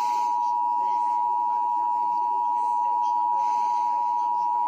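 Emergency Alert System attention signal: two steady tones sounded together (853 and 960 Hz), a continuous, unwavering alert tone that announces an emergency message, here a winter storm warning.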